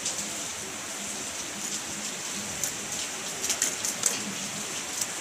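Steady hiss of noise, with a few short sharp clicks and ticks about three to four seconds in.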